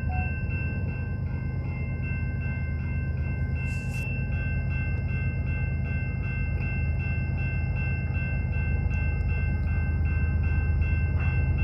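CPKC freight train approaching, its low rumble slowly growing louder, while a level-crossing warning bell rings steadily at a few strokes a second.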